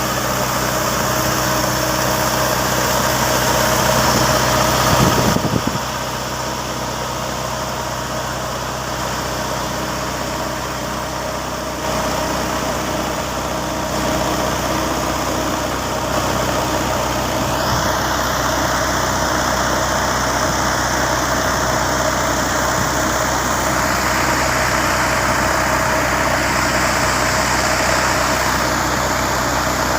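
Large mining excavator diesel engine running steadily with a constant low hum. The sound changes abruptly several times, about every six seconds.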